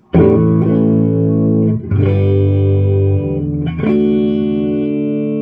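Electric guitar played through a 1974 Fender Bassman 50 tube amp head: three chords struck about two seconds apart, each left to ring.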